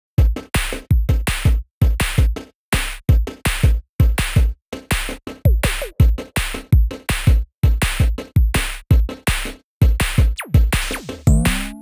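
Electronic background music built on a drum-machine beat with deep kick drums and sharp, short hits. A few falling pitch sweeps occur in the middle, and a rising sweep comes near the end.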